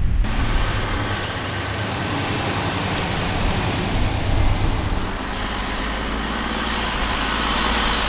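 Steady rumble and hiss of road traffic, with no single event standing out.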